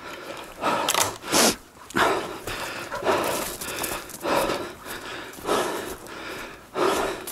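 A person walking briskly through woodland undergrowth: footsteps in dry leaves and brush with heavy breathing, roughly one step or breath a second.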